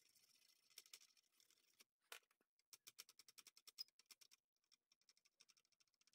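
Near silence, with faint, rapid light clicks and ticks.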